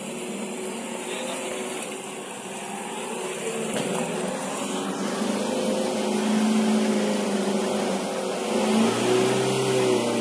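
Engine of a Hyundai Galloper 4x4 SUV pulling slowly along a muddy track, the revs rising and falling with the throttle and the sound growing louder as the vehicle approaches.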